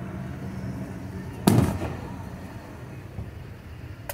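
A single aerial firework shell bursts about a second and a half in: a sharp boom with a rumbling tail that dies away. A smaller crack comes near the end.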